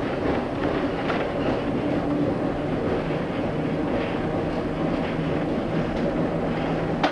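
Tram running on its track: a steady rumble of wheels on rail under a low electric motor hum, with a few knocks as the wheels cross rail joints. A sharp knock comes near the end, after which the sound gets quieter.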